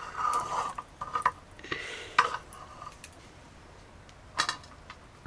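Metal utensils clinking and scraping against pots and dishes in a few separate strokes, the sharpest a little past two seconds in, then a quieter stretch broken by one more clatter near the end.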